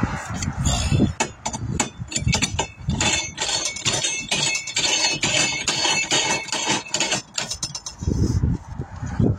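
Metal clinking and scraping on a steel wheel rim being handled and worked by hand, a dense run of rapid scratchy clicks through the middle, with low rumbling bursts near the start and end.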